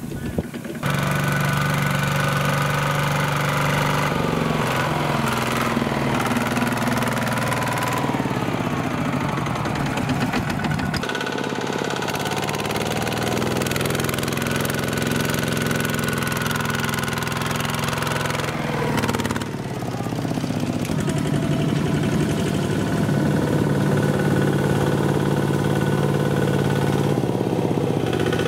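Single-cylinder Kubota diesel engine of a two-wheel walking tractor running steadily as it pulls a loaded trailer through mud, with a knocking diesel beat. The engine note shifts abruptly a few times.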